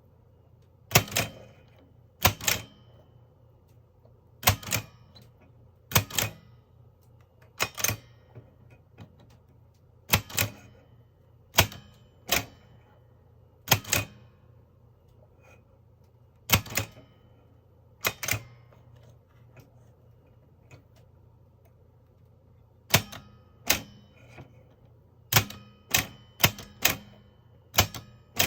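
Mignon index typewriter No. 4 being typed slowly: sharp clacks, often in pairs, one strike every second or two as each character is picked with the pointer and the print key pressed. The strikes come faster near the end.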